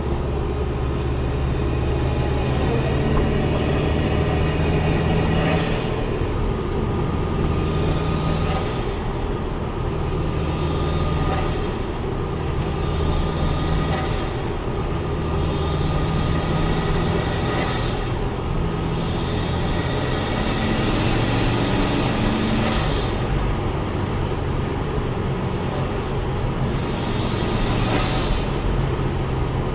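Vehicle climbing a hill with its engine running steadily. Several times, a high hissing whine builds for a second or two and then cuts off sharply: the weird sound that comes when the throttle is let off going uphill.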